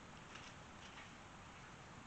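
Near silence: faint outdoor background with a few very soft rustles.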